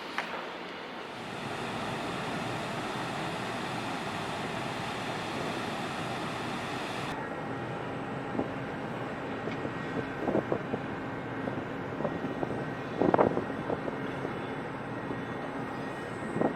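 Steady rushing, rumbling noise aboard a large ferry. The sound changes abruptly about seven seconds in, becoming duller with a faint low hum, and a few short knocks come after that.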